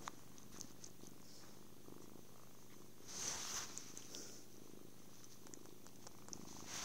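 Kitten purring softly and steadily, with a brief rustle about three seconds in and another near the end.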